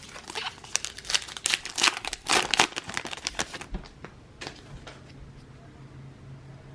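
Foil wrapper of a baseball card pack crinkling as it is torn open and peeled back, a dense rustle for about three and a half seconds, then two last crackles.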